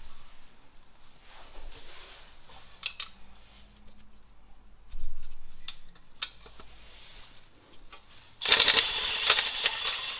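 Metal hand tool working on fasteners at the underside of an engine: scattered light clicks and scrapes, then a loud rapid run of clicking about eight and a half seconds in that lasts under two seconds.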